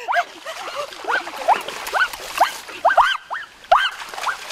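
Puppy yelping in short, high, repeated cries, about two or three a second, over the splashing of feet in shallow stream water during the first half.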